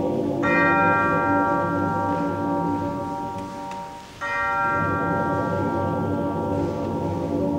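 Mixed choir singing long sustained chords in a large, echoing church, with a brief breath about four seconds in before the voices enter together on a new chord.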